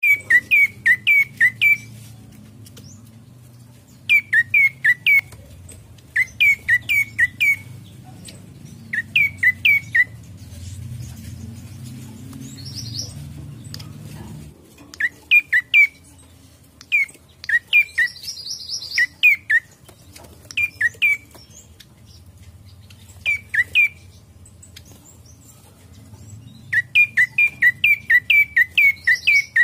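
Prenjak coki tailorbird singing: bursts of four to eight quick notes, each sliding downward, repeated every couple of seconds with short pauses. A few fainter, higher calls come in between, over a low hum.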